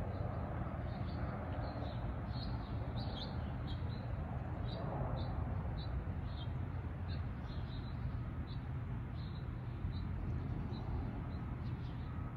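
A small bird chirping over and over, short high chirps about two a second that thin out near the end, over the steady low rumble of a jet airliner on approach.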